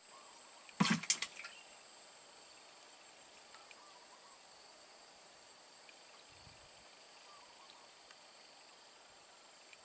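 Steady high-pitched drone of insects, with a couple of sharp knocks about a second in.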